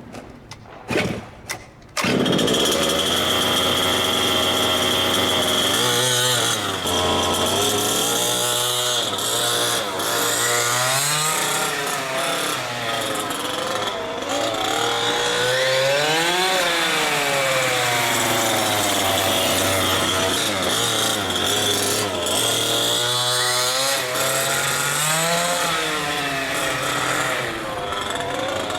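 Kraken Vekta.5's two-stroke gas engine starting warm without the choke, catching abruptly about two seconds in, then running and revving up and down again and again at part throttle while still breaking in.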